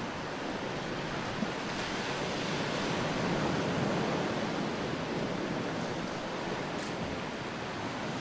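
Sea surf washing steadily, swelling a little around the middle.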